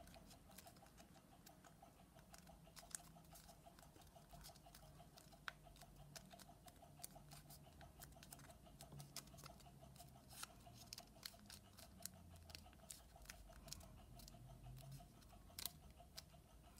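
Faint, scattered crackles and ticks of origami paper being folded and creased by hand, over a faint steady hum.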